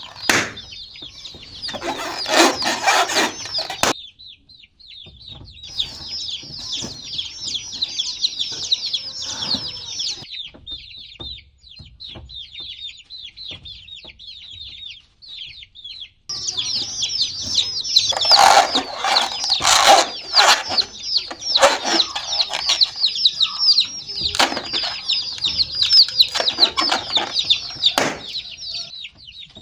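A group of baby chicks peeping in a dense run of fast, high chirps that fall in pitch, thinner through the middle stretch. Bursts of louder noise break in about two seconds in and repeatedly in the second half.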